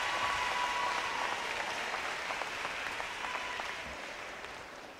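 Audience applause: many hands clapping, loudest at the start and dying away over the last couple of seconds.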